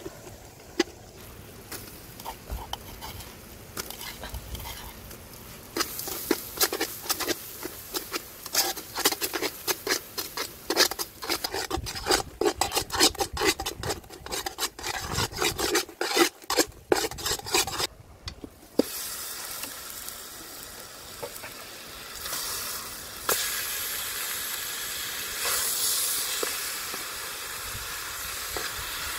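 A metal spoon scrapes and clicks rapidly against an aluminium pot as a paste is stirred in sizzling oil. After a short break near the middle, a steadier sizzle of frying takes over.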